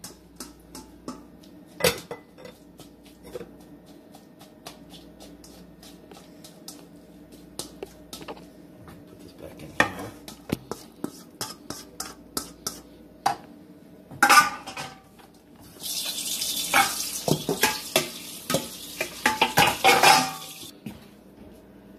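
Spoon and metal spatula clinking and scraping against pots as food is stirred. About two-thirds of the way in, a hiss starts suddenly and lasts about five seconds: the drained ground beef sizzling in the hot skillet as it is stirred with a slotted spatula.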